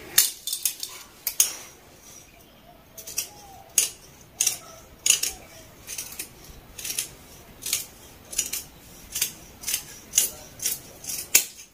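Large tailor's scissors snipping through folded lining fabric to cut an armhole curve: a long run of short, crisp snips, one about every half to three-quarters of a second.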